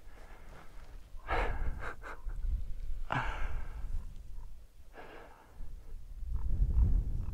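A hiker breathing hard after a climb: several heavy breaths, with wind buffeting the microphone near the end.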